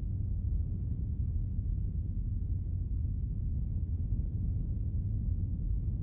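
Deep, steady low rumbling drone with nothing else over it, a sound-effect bed.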